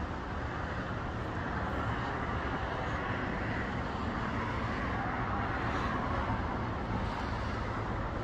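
Steady road traffic noise: a continuous rush of cars passing on a roadway, swelling gently now and then.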